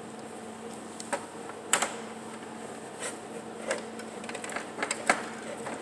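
Scattered light clicks and taps of a Phillips screwdriver working at the heat-sink screws inside a desktop computer case, the sharpest about two seconds in, over a faint steady hum.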